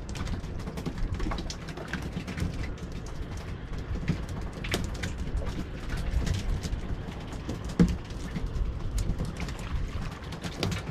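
Wind rumbling on the microphone and sea water slapping against a small open boat, with scattered irregular clicks and taps. A sharper knock about eight seconds in.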